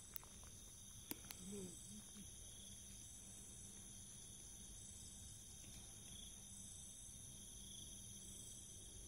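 Faint night chorus of insects: steady high-pitched trilling, with one chirp pulsing on and off about once a second. A few small clicks fall in the first two seconds.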